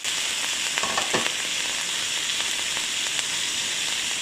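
Chopped tomatoes and onions sautéing in hot oil in a frying pan, a steady sizzle, with a few faint clicks about a second in.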